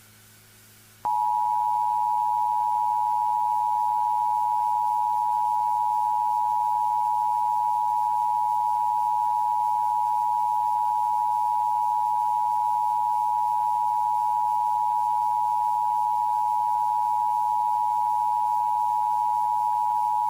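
Emergency Alert System attention signal: a steady alert tone that comes in about a second in and holds at one unchanging pitch for about twenty seconds.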